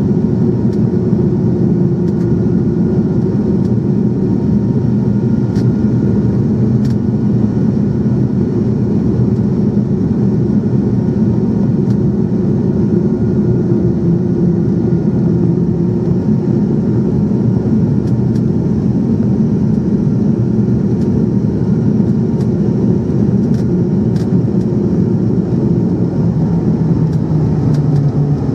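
Cabin noise inside an ATR 72 turboprop airliner on approach to land: a steady drone of engines, propellers and airflow, with a constant propeller hum running through it.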